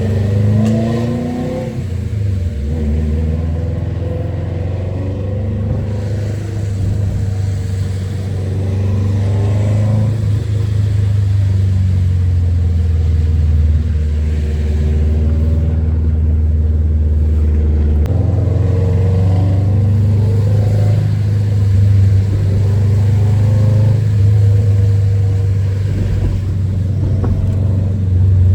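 Subaru WRX's turbocharged flat-four engine pulling as the car drives, its pitch rising and falling as the throttle and gears change.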